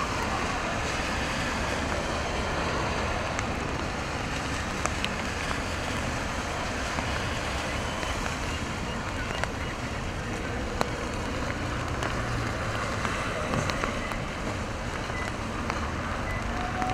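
Rainy city street: a steady hiss of traffic and falling rain, with a few sharp ticks.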